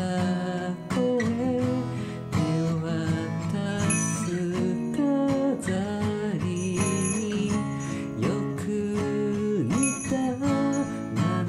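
Acoustic guitar playing continuously, picked and strummed, with a sliding melody line above the chords; no words are sung.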